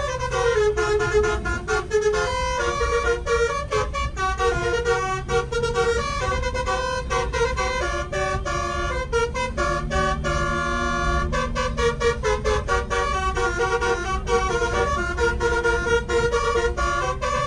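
Basuri 'telolet' air horn, a 12-trumpet roof-mounted set on a coach, playing a quick tune of short stepping notes, with one longer held chord about ten seconds in, over the low rumble of the bus.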